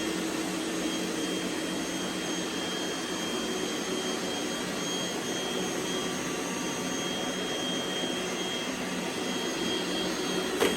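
Robot vacuum cleaners running together: a steady whir with a thin high whine over it, and a brief knock near the end.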